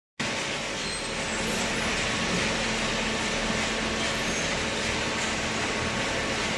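Hydraulic cardboard baling machine running: a steady mechanical noise with a faint low hum.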